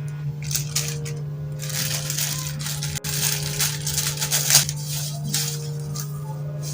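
Packaging being handled and opened by hand, with irregular crinkling and rustling throughout, over steady background music.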